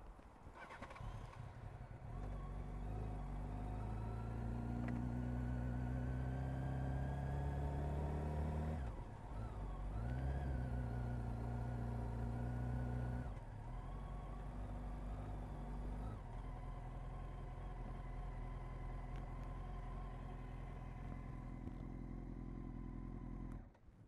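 2000 Honda CBR929RR Fireblade's inline-four engine through an Erion Racing full exhaust, rising in pitch for several seconds with a brief dip about nine seconds in. It then drops to a steady low note from about sixteen seconds in, until it cuts off near the end.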